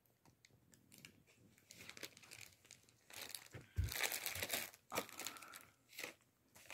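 Plastic and foil treat bags crinkling and rustling in irregular bursts, busiest in the middle, with a soft low thump about four seconds in.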